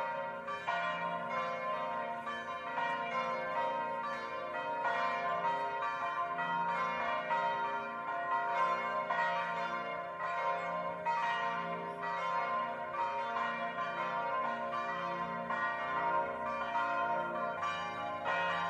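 A recorded peal of church bells, struck one after another about once or twice a second, their tones ringing on and overlapping.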